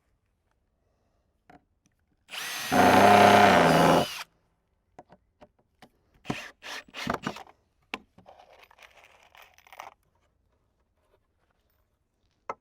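Power drill driving a screw into a wooden cover board, one steady motor whine of about two seconds. Several sharp knocks follow a couple of seconds later, then a faint scraping.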